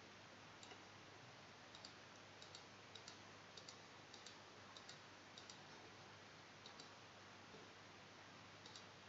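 Faint computer mouse clicks, about a dozen at uneven intervals, over near silence: clicking a simulated potentiometer's adjust control up and down.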